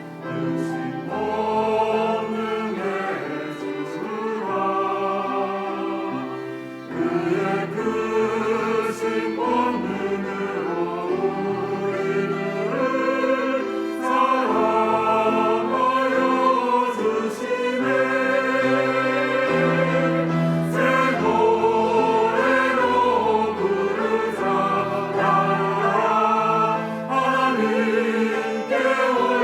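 Church choir singing a Korean sacred anthem in sustained phrases, over low held accompaniment notes.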